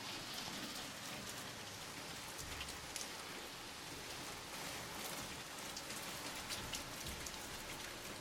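Steady rain falling, a dense hiss with scattered individual drops ticking on a hard surface.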